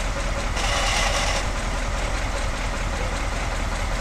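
Bus engine running steadily, with a brief hiss about a second in.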